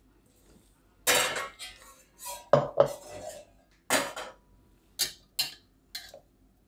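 Chunks of bael fruit pulp tipped from a bowl into a stainless steel mixer-grinder jar, with dish-on-metal clinks as the bowl meets the jar. A string of irregular clattering knocks, the loudest about two and a half seconds in, then a few shorter knocks near the end.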